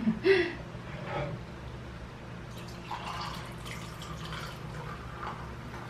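Two sharp clicks right at the start, then beer being poured from an aluminium can into a glass from about halfway in, splashing and fizzing as it fills.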